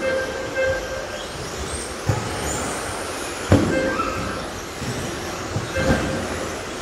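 Radio-controlled racing trucks running on a carpet track: motor whine that comes and goes as they pass and accelerate, over steady tyre and drivetrain noise. A sharp knock about three and a half seconds in as a truck lands or strikes something, with a few lighter knocks around it.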